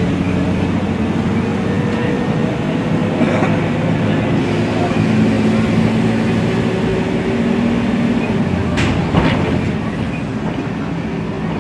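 Diesel engine of a Mercedes-Benz O500U city bus running steadily, its pitch shifting slightly up and down. Two sharp clicks come about nine seconds in.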